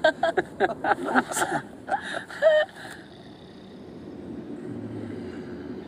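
People laughing in short, quick bursts for about three seconds, then fading into a quiet steady low drone.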